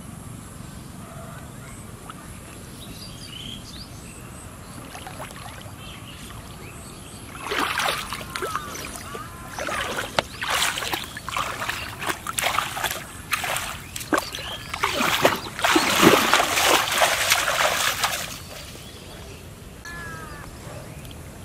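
Shallow floodwater splashing and sloshing in a run of irregular bursts for about ten seconds, loudest near the end, as a fish is grabbed by hand in the water.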